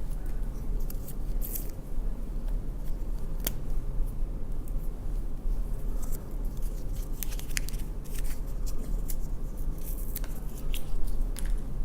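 Fingers picking and peeling sticky tape off a roll of 120 film, scattered small clicks and scratchy rustles, over a steady low hum.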